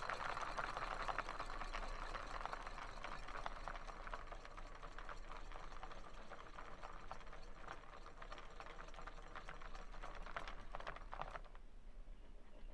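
Homemade 12 V coil-driven model engine built from wooden ice-cream sticks, running with a fast, dense clicking clatter from its coils and wooden gear train; the clatter weakens and stops about eleven seconds in.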